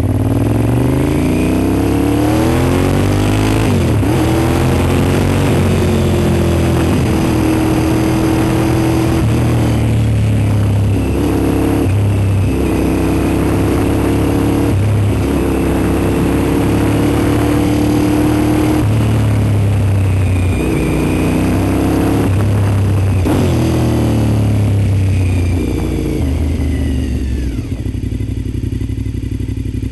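Honda RC51's V-twin engine running under way, its pitch climbing early on and then dropping and rising again several times as the rider changes gear and throttle. The revs fall away near the end as the bike slows.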